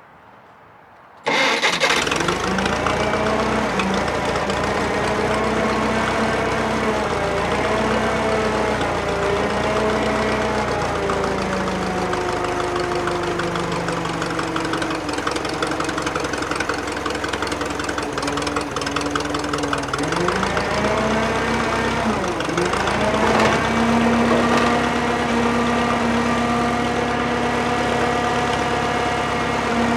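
Drott 85RM2 crane's engine running under load as the crane's hydraulics lift, cutting in abruptly about a second in. Its pitch sags and climbs back several times, with a marked dip and recovery about twenty seconds in.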